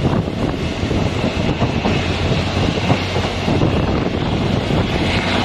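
Passenger train running along the track, heard from a coach window: a steady rumble of wheels on rail with wind on the microphone.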